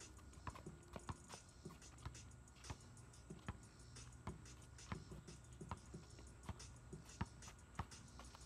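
Basketball bouncing on pavement: faint, unevenly spaced knocks about two a second.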